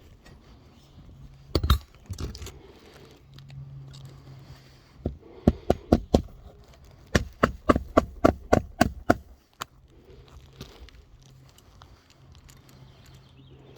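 Hammer striking nails into a roof shingle: one blow, then about a second later two quick runs of blows, about five a second, that stop near the middle.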